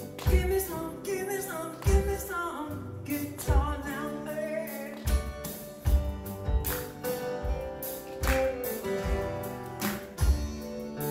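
A live band playing: two acoustic guitars and a drum kit keep a slow, steady beat, and a singer's voice carries the first half.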